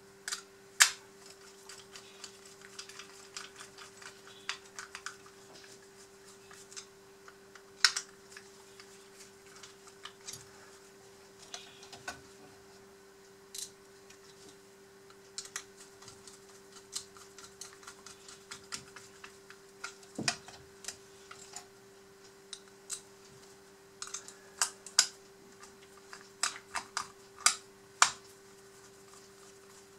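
Irregular small clicks and taps as metal parts of a Huina 580 all-metal model excavator's arm and its small screws are handled and fitted together by hand, a few of them sharper knocks. A steady faint hum lies underneath.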